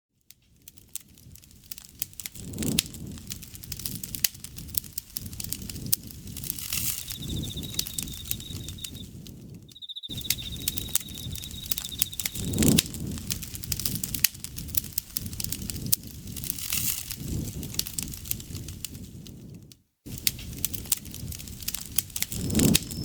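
Campfire crackling and popping over a low, soft rush of flames. An insect trills steadily in the middle stretch, and another, higher one starts near the end. The whole sound cuts out for a moment about every ten seconds.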